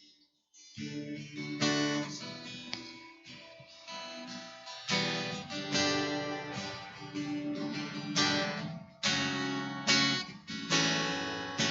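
Acoustic guitar strumming chords, starting about a second in, with a hard strum every second or so.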